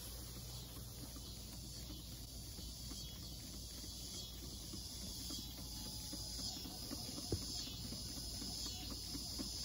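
Weeden No. 20 toy steam engine running under steam: its small vertical slide-valve engine turning the flywheel with a fast, even ticking rhythm, with one sharper click about seven seconds in.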